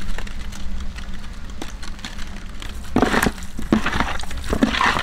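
Raw giant trevally chunks being mixed by hand with salt and turmeric on a metal tray: wet squelching and rubbing of fish pieces, with a few small clicks. It grows busier about three seconds in.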